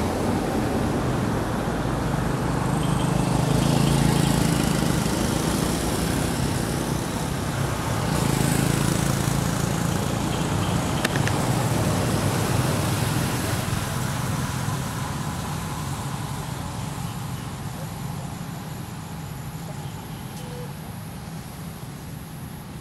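Low rumble of road traffic, swelling about 4 and 9 seconds in, then slowly fading.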